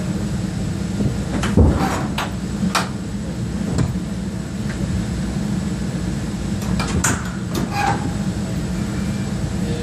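Aerial firework shells bursting in the distance: a series of sharp bangs, the loudest and deepest about a second and a half in, more between two and four seconds and a few again around seven to eight seconds, over a steady low hum.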